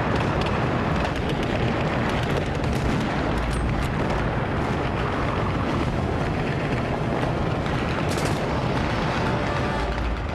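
Continuous din of battle: a steady rumble of explosions with many rapid gunshots mixed in.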